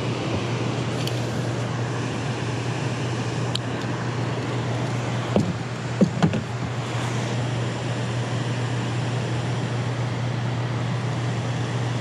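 Steady rushing noise of the river's outflow below a dam, with a constant low hum. A few short knocks come about halfway through.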